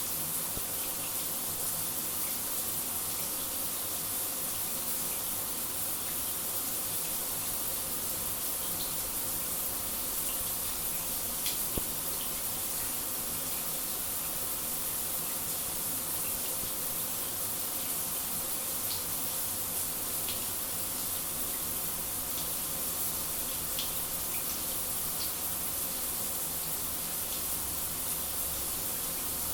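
Shower running: falling spray making a steady, even hiss, bright and unchanging, with a few faint tiny ticks of droplets.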